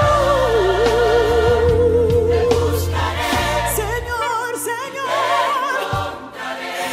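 Christian worship music: a woman sings long held notes with a wide vibrato over an accompaniment with backing vocals. The deep bass drops out about four seconds in, leaving the voice over lighter accompaniment.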